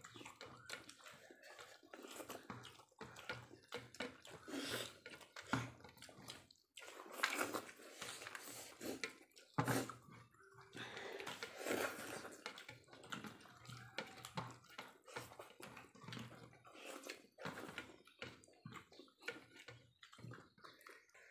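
Faint eating sounds from several people picking food off a metal platter with their fingers and chewing: many small irregular clicks and smacks.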